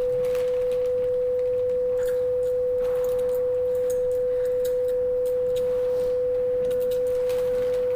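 A steady, unbroken electronic tone held at one mid pitch, with faint clicks and rustles beneath it.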